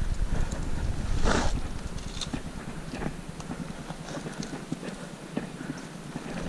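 Footsteps over loose rock and dry grass: irregular clacks and scrapes of stones underfoot, with a louder scuff about a second in, and wind rumbling on the microphone.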